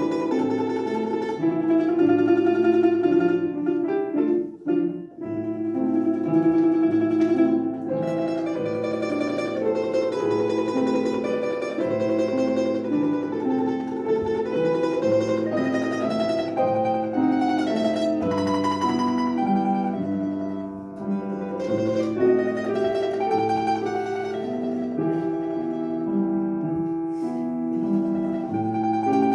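A plucked string instrument playing a melodic recital piece, with a brief drop in level about four to five seconds in.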